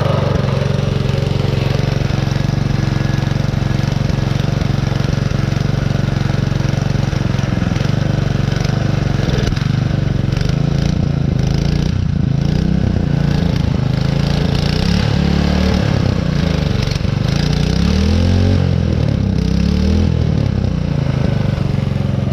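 A small 3 hp Briggs & Stratton single-cylinder engine on a mini bike running steadily. Its speed rises and falls several times in the second half.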